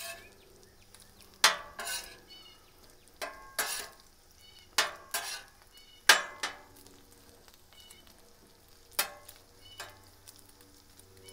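Metal spatula scraping across the steel top of a Blackstone griddle as it pushes and turns crisping bacon, in short strokes that mostly come in pairs about half a second apart, with quiet gaps between them.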